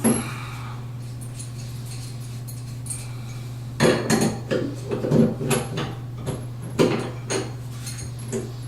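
Metal clinks and knocks of a wrench and plumbing fittings being worked under a sink while a water supply connection is loosened and turned to the right angle. One knock at the start, then a run of clattering clinks from about four to seven and a half seconds in.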